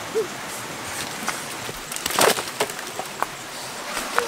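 Dry wooden sticks knocking and cracking against each other, with scattered clicks and a louder clatter about halfway through.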